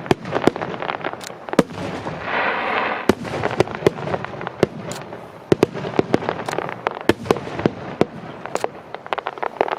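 Aerial fireworks bursting overhead in quick, irregular succession: many sharp bangs over a constant crackle, with a denser stretch of crackling hiss about two seconds in.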